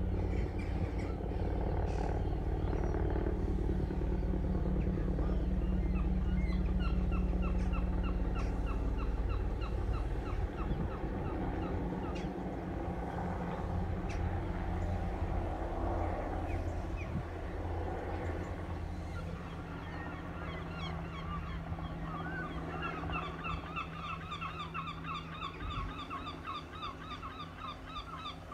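Search-and-rescue helicopter flying at a distance: a steady low drone of rotor and engines that fades after about nine seconds. Over it, a bird's rapid chattering calls come in two runs, one a few seconds before the middle and a longer one near the end.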